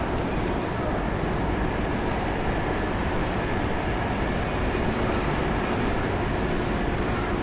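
A train running past, a steady rumble of wheels on rail with no breaks.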